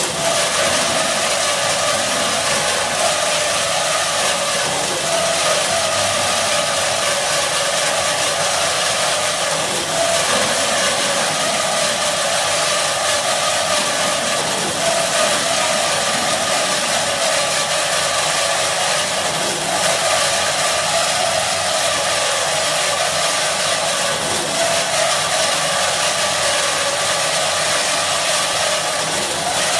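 IMET KS-1202 NC metal-cutting band saw running steadily: an even mechanical hiss with a few steady tones.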